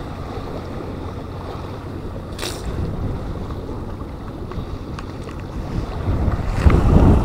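Strong wind buffeting the microphone: a steady low rumble that grows louder in gusts near the end, with a brief hiss about two and a half seconds in.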